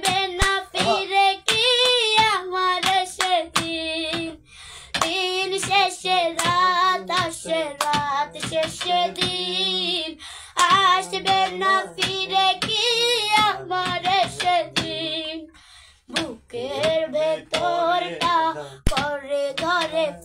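A young girl singing a song with a wavering pitch, while hands clap the beat in sharp, regular claps. A man's lower voice joins in at times.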